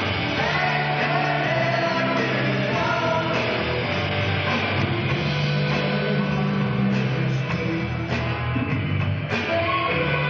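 Live rock band playing electric guitars, bass and drums, with a voice singing in the first second or so and a cymbal crash near the end.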